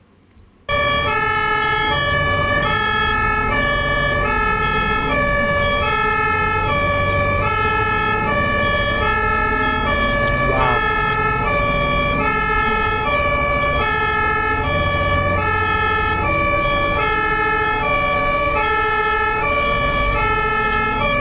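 German ambulance two-tone siren (Martinshorn) alternating evenly between a high and a low note, switching about every two-thirds of a second, over a low traffic rumble. It cuts in abruptly about a second in.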